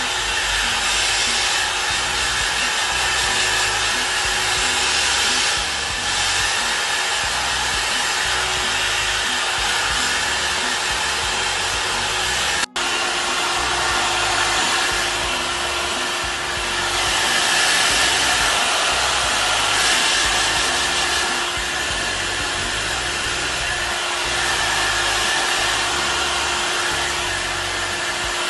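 ION Haircare H5 negative-ion hair dryer running on heat mode 1, a steady rush of air with a steady hum. The loudness swells and dips slightly as it is used, and the sound breaks off for an instant about thirteen seconds in.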